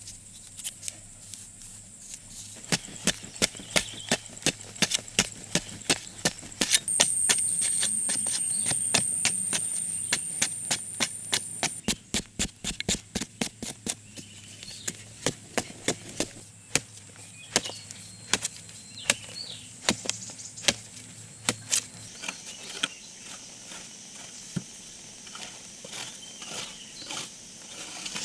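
A hoe blade chopping into packed dry earth, sharp strikes about two to three times a second. About seven seconds in, a high steady whine rises over it and holds for about five seconds before stopping.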